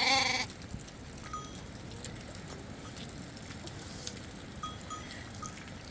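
A short animal bleat at the very start, fading within half a second, then a steady low background with a few faint, brief high chirps.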